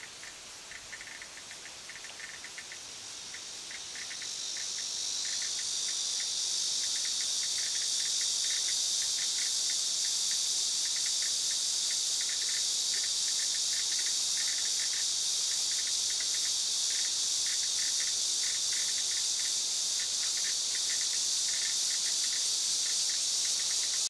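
Cicada singing: a high, steady buzz that swells over the first several seconds and then holds loud. Short, lower-pitched clicks repeat irregularly throughout.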